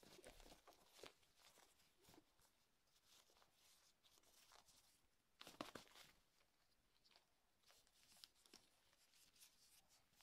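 Faint scratching and rustling of a cat's claws and paws on a terry-cloth towel, in short scrabbling bursts with the loudest scrape about halfway through.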